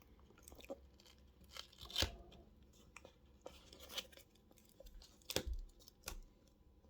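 Scattered light clicks and taps from handling small phone parts, fitting the smartphone's internal shield back on.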